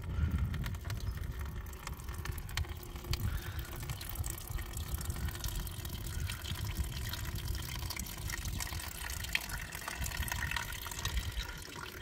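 A thin stream of water splashing steadily from the spout of a hand-pump-style garden water fountain into its bucket, while the fountain's small electric pump runs at its lowest setting and the upper bucket is still filling. An uneven low rumble lies underneath.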